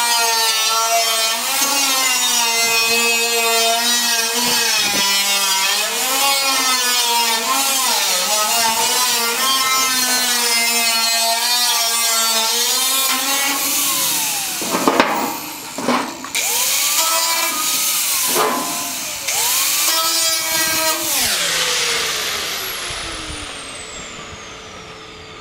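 Angle grinder cutting into a steel 55-gallon drum, its motor whine dipping and recovering in pitch as the wheel bites into the metal. About halfway through it stops with a few knocks and revs up twice, then winds down and fades near the end.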